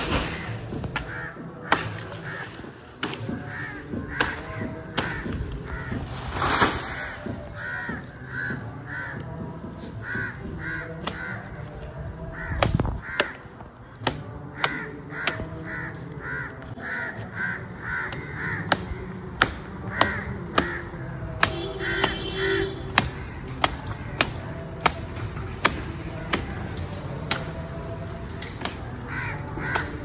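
Crows cawing over and over in short runs of two or three calls. Through the second half come sharp, evenly spaced knocks, about one every second: a machete chopping into the crown of a coconut palm.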